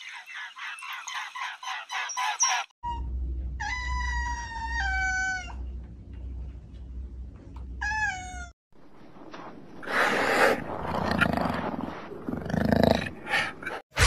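Rapid high peeping of a swan cygnet, about five peeps a second, stops suddenly. Then a domestic tabby cat meows twice, each meow falling in pitch, over a low pulsing rumble. The last few seconds hold a harsher, noisy sound that comes in bursts.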